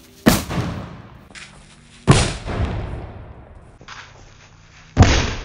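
No. 4 firecrackers exploding: three loud sharp bangs, the second about two seconds after the first and the third about three seconds later, each echoing for about a second.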